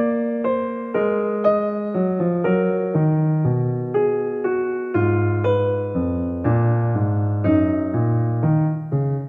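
Background music played on a keyboard with a piano sound: chords and a melody over a low bass line, a new note about every half second.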